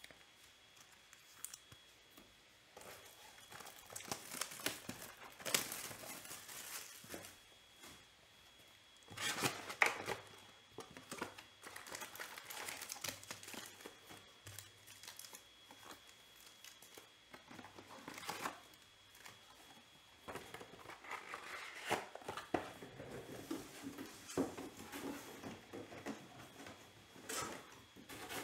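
Plastic wrapping on a 2021 Panini Select Baseball card box is torn and crinkled as the box is opened and its packs are taken out. The handling sounds are irregular and stop and start, loudest about ten seconds in.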